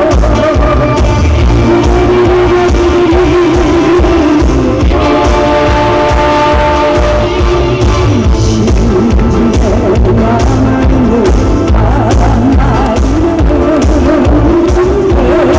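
A woman singing into a microphone over amplified music with a steady beat. Her voice wavers with vibrato, and an instrument holds long notes under it about five seconds in.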